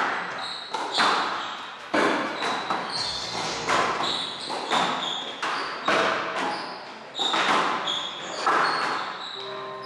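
Squash rally: the ball cracks off rackets and walls about once a second, each hit echoing around the court, with short high squeaks of court shoes on the floor between hits.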